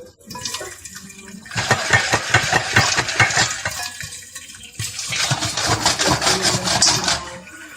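Popcorn popping in a covered pan of hot coconut oil while the pan is shaken on the stove: dense crackling and rattling in two bursts, with a short lull about four seconds in.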